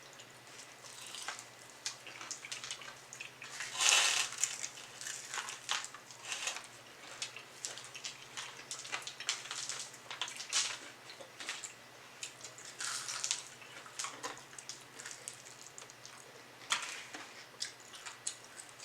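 Close-miked chewing and crunching of crispy pan-fried chicken wings: irregular crackly bites, the loudest crunch about four seconds in.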